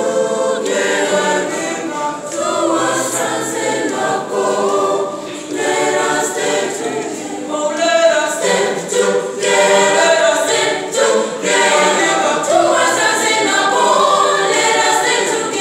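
A small school choir singing a sacred song unaccompanied, several voices at once.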